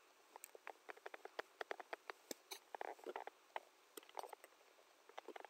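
Faint, irregular small clicks and taps, dozens of them scattered through a quiet pause, with no speech.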